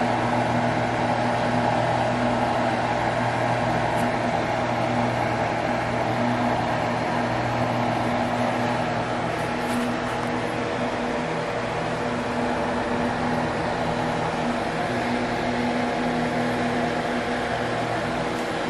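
A kitchen appliance's motor and fan running, a steady hum with an even whoosh that does not change.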